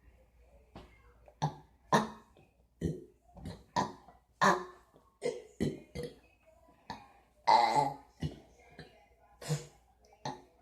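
A rapid string of deliberate burps in a burp-off, about fifteen short ones, with a longer, louder burp about seven and a half seconds in.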